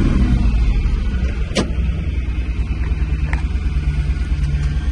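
A 1970 Dodge D500 dump truck's engine running steadily with a low rumble. A sharp click comes about a second and a half in, and a fainter one a little later.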